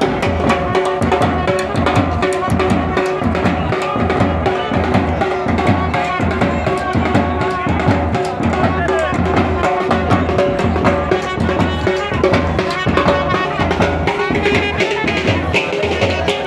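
Wedding brass band playing: marching bass drums and snare drums beating a steady, dense rhythm under held trumpet notes.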